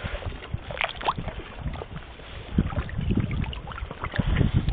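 Shallow water sloshing and splashing as a hand dip net is worked through it among stones and algae, with irregular low knocks and splashes.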